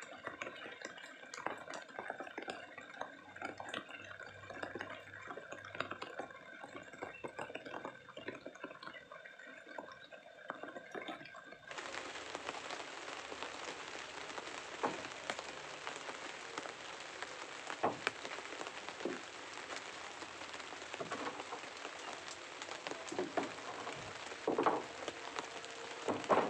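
An even hiss with scattered crackles and clicks. Near the end come several sharp knocks as power tools are set down on the wooden boat's frames.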